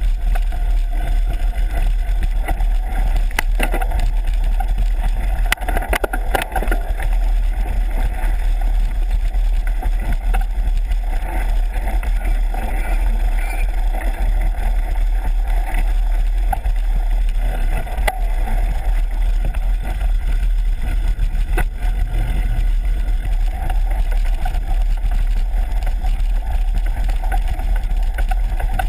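Mountain bike riding over a bumpy dirt trail: a steady low rumble of wind buffeting the action camera's microphone and tyres on the ground, with rattles and knocks from the bike over bumps, several sharper knocks from about three to seven seconds in.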